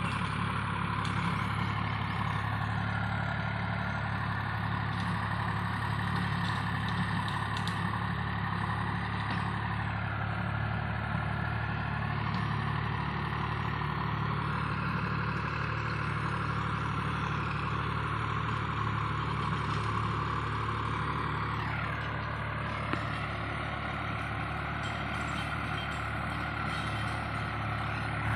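Diesel engine of a VST Shakti Viraaj 9045 DI tractor running steadily under load as it pulls a rotavator.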